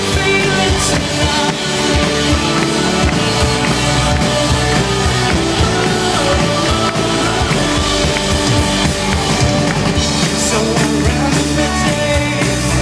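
Live rock band playing loudly, with electric guitars, a drum kit keeping a steady beat, and keyboards.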